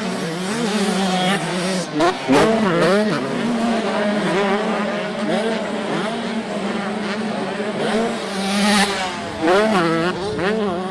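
Motocross bike engines revving on the race track, the pitch climbing and dropping sharply again and again as the riders work the throttle and shift.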